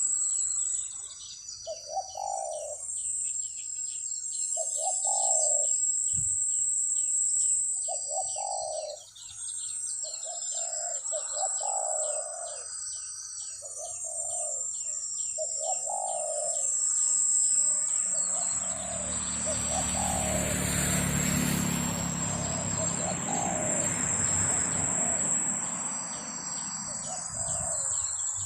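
Doves cooing in repeated short phrases, over a steady high insect buzz and rapid ticking. A broad rushing noise swells for several seconds in the middle.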